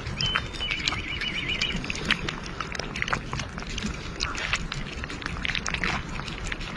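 Two cats eating wet cat food from a metal bowl right at the microphone: quick, irregular wet chewing and smacking clicks throughout.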